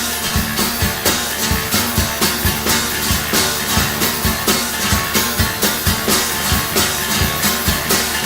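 Heavy stoner/doom rock band playing, with drums hitting a steady, driving beat under guitar.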